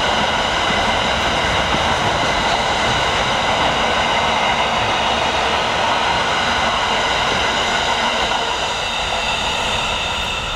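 Freight train wagons rolling past, a steady rumble of wheels on rail with steady high-pitched wheel squeal; the sound begins to fade near the end as the last wagon goes by.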